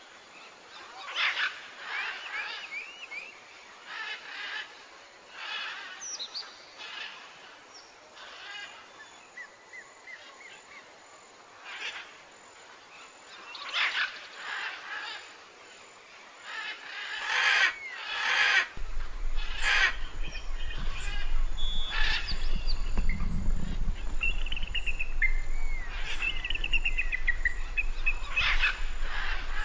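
Small birds chirping and singing in short calls and whistled phrases, some notes sliding up and down. About two-thirds of the way in, a steady low hum starts underneath.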